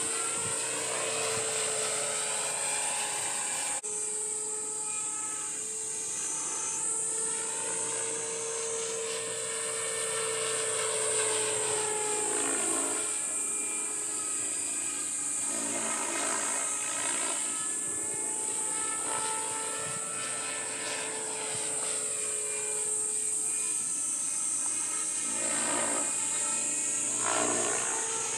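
Radio-controlled model helicopter flying overhead: a steady high whine from its motor and rotors. The sound sweeps and shifts in tone as it moves about the sky.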